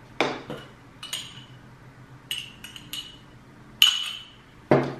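A drinking glass of water clinking as it is handled: a series of light taps and knocks, each with a short glassy ring, the loudest a little before the end, then a duller knock.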